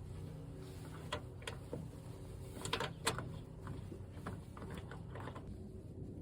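Scattered clicks and light knocks of hand work on a pickup's taillight housing, several close together about three seconds in, over a low steady hum.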